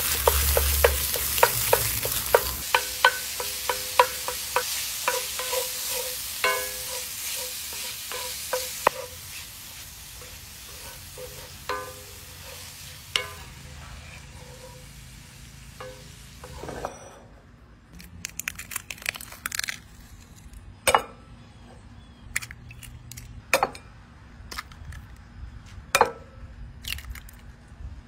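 Ground sausage sizzling loudly in a hot cast-iron skillet while a wooden spatula taps and scrapes against the pan, breaking up the meat. The sizzle fades, then stops a little over halfway through. Sharp knocks and clinks follow, about three strong ones, as eggs are cracked against a glass bowl.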